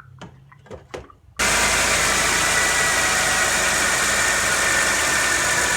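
Holden Commodore engine idling steadily with a steady high whine, run with the radiator cap off to circulate the fresh coolant and purge air from the cooling system. It comes in abruptly about a second and a half in, after a few faint knocks.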